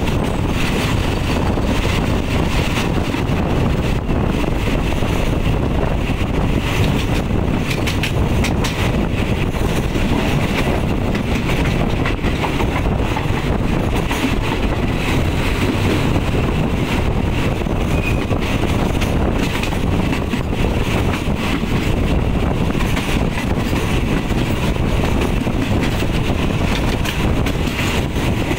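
Steady running noise of a moving passenger train heard from a carriage window, with wind buffeting the microphone.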